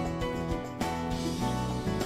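Background music with plucked guitar and a regular beat.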